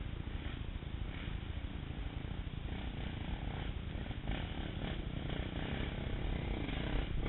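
Low steady rumble of dirt bike engines running, with other bikes faintly climbing the rocky trail and swelling now and then.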